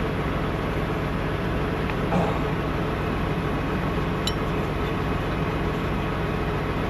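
Steady low drone of an idling truck engine, with a metallic clank about two seconds in and a short ringing metal clink just after four seconds from wrenches working on the fan clutch hub.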